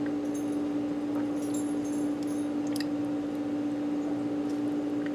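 A steady hum with one held tone, with a few faint soft clicks in the first three seconds as a silicone spoon moves food around in a pan.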